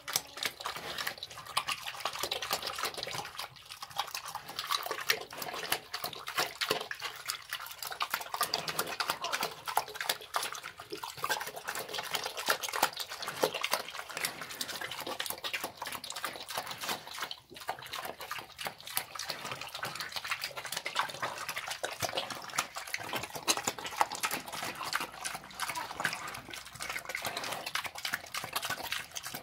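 A pig eating wet slop of vegetable scraps from a trough: continuous wet slurping, smacking and chomping, with one short break a little past halfway.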